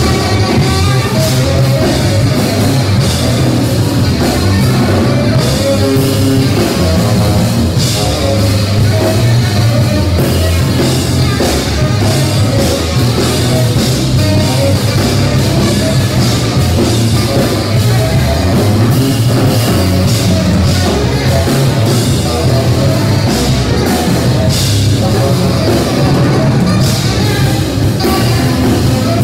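Live saxophone, electric bass guitar and drum kit trio playing together, loud and dense without a break.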